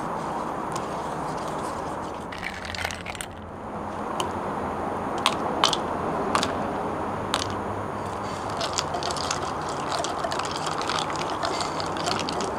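Ice cubes clinking as they are dropped one at a time into a paper cup of milk tea, a few sharp clicks about halfway through. Then a quick run of small rattling clinks as the ice is stirred with a plastic straw, over steady background noise.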